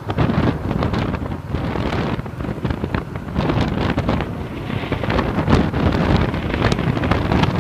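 Wind buffeting the microphone in a loud, uneven rumble, over motorbikes running along a road.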